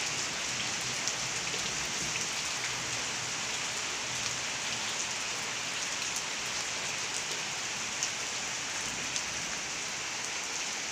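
Heavy rain falling steadily onto a courtyard covered with standing water and onto the surrounding roofs.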